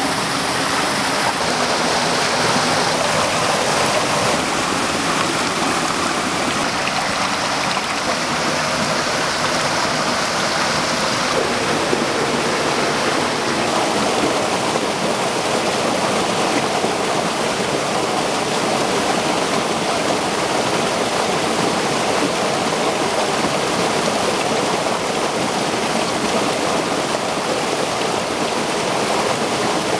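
Mountain stream with a small waterfall rushing steadily over rocks into a pool.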